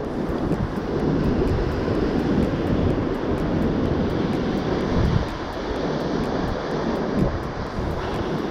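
Wind buffeting the microphone in a steady low rumble, with the sea behind it.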